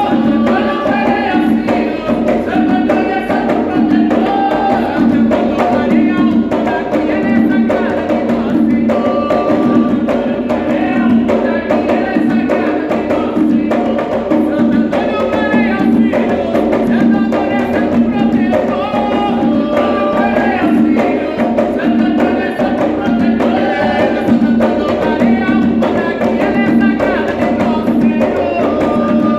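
Voices singing a melody over steady hand-drum percussion, in the style of an Umbanda ponto sung to atabaque drums.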